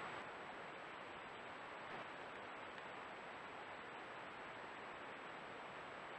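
Steady hiss of a trail camera's built-in microphone, with a faint thin high whine. No animal sound stands out.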